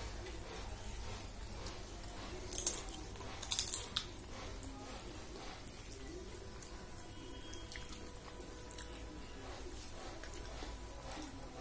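Eating by hand: fingers mixing soft millet khichdi on a steel plate, with wet squishing and chewing, and two short crisp noises about two and a half and three and a half seconds in. A steady low hum sits underneath.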